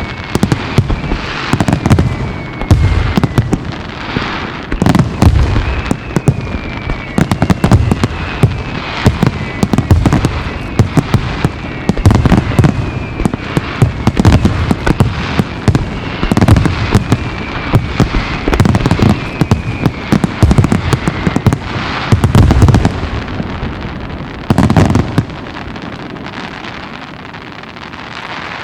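Wide starmine fireworks barrage: a rapid, dense run of shell bursts and bangs with crackle, and repeated whistles that fall in pitch. The bursts thin out over the last few seconds.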